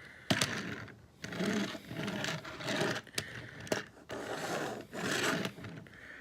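Plastic wheels of a Transformers Studio Series Ratchet toy in vehicle mode rolling back and forth over a surface, in about five short passes with a few clicks between them.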